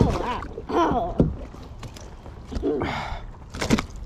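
A largemouth bass being landed into a kayak: a short burst of splashing about three seconds in, followed by a few sharp knocks.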